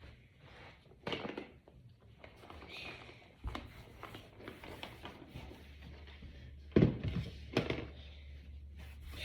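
Plastic Brain Flakes building discs being handled and pushed together: a few scattered clicks and knocks, with two louder thunks near the end, over a faint low hum.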